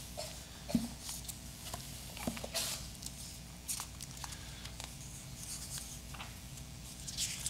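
Pages of a book being leafed through and turned, with scattered faint paper rustles and a few soft clicks of handling, over a steady low hum.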